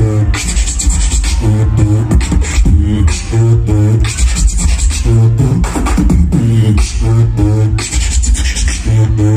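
Solo beatbox routine: deep bass notes coming back about every second and a half, with bending, sung-sounding notes above them and sharp snare and hi-hat sounds keeping a steady beat.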